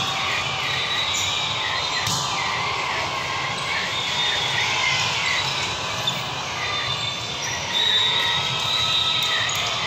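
Echoing indoor gym din: a steady mix of many overlapping voices from players and spectators. A sharp knock comes about six seconds in, and the noise rises near the end.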